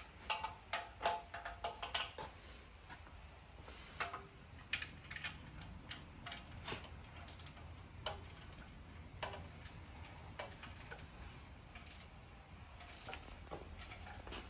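Scattered light clicks and clinks of hand tools and metal parts being handled while an aftermarket exhaust is fitted, irregular rather than in a rhythm. A few clinks in the first two seconds ring briefly.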